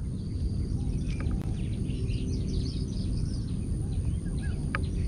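Outdoor ambience: a steady low rumble with faint bird chirps over it.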